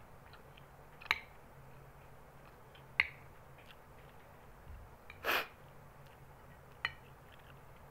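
A metal spoon clinks sharply against a bowl three times while scooping rice. About five seconds in there is one short, sharp sniff.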